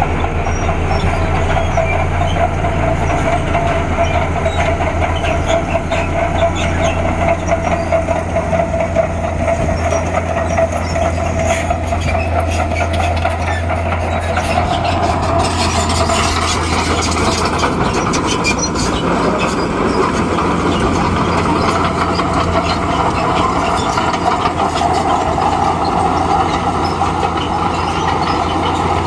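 Crawler bulldozer working: its diesel engine runs steadily under the rattling clatter of the steel tracks. About halfway through, the engine's low hum drops away and the clatter grows denser, with a wavering higher engine note.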